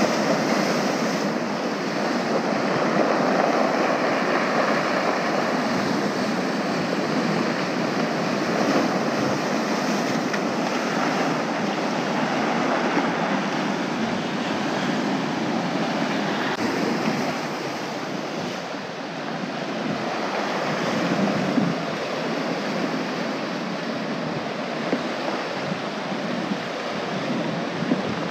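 Ocean surf washing and breaking among coastal rocks: a steady, continuous rush of waves.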